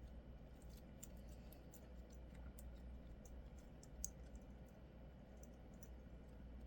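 Faint, scattered little clicks and pops of soft slime being squished and handled, the sharpest about four seconds in.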